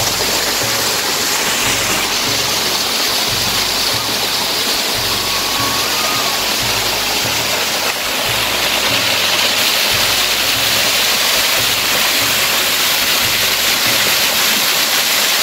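Small waterfall pouring down a rock face: a steady rush of falling water, a little louder from about eight seconds in.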